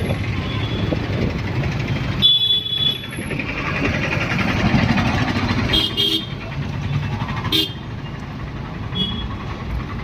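Busy street traffic running steadily, with several short vehicle horn toots and voices in the background.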